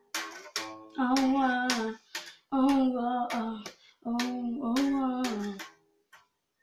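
A boy singing wordless 'oh' phrases to his own strummed guitar: four held phrases, each sliding down in pitch at its end, dying away to near silence in the last second.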